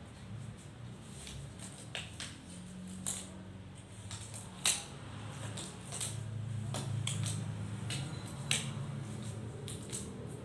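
Scattered light clicks and taps of small objects being handled, one louder click a little before the middle, over a low steady hum.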